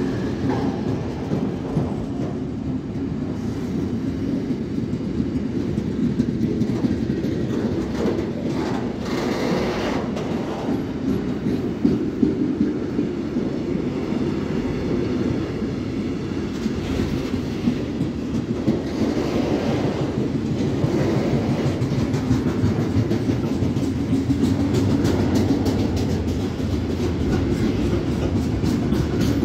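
Freight train of tank wagons and hopper wagons rolling past close by: a steady rumble of wheels on the rails with a continuous clatter, no locomotive horn.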